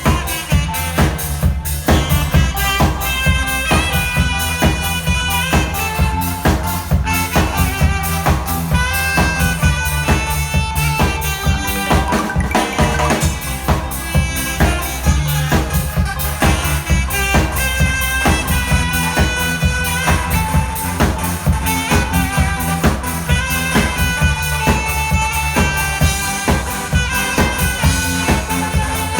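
Instrumental music: a saxophone melody over a backing track with a steady drum-kit beat and a strong bass line.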